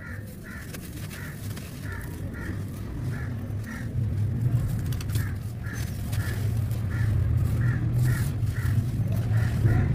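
A bird calling over and over, about two calls a second, over a low rumble that grows louder from about three seconds in. Faint crumbling of damp cement lumps under hands.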